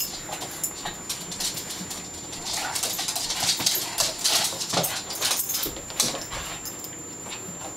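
Two puppies play-fighting: short whimpers and yips among a run of quick clicks and taps, busiest in the middle.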